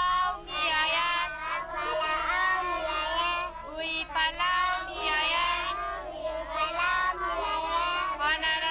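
A girl singing solo and unaccompanied, her voice bending and wavering on the held notes, in phrases broken by short pauses for breath.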